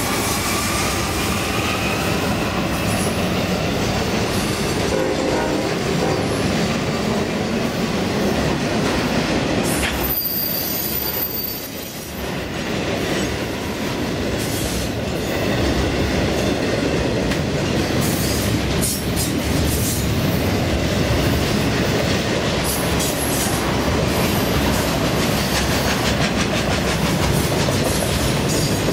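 Intermodal freight train rolling past at steady speed: the last locomotives go by at the start, then double-stack container and trailer cars clatter over the rails with a continuous wheel rumble. Brief high wheel squeal about ten seconds in, and the sound dips for a moment around twelve seconds.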